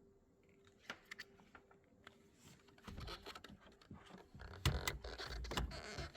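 Handling noise: a few scattered clicks, then from about three seconds in rustling and scraping with low bumps and sharp clicks, over a faint steady hum.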